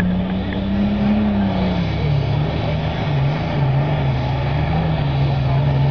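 International pulling tractor's engine revving at the start of a tractor pull, its pitch rising slightly about a second in, then dropping and wavering.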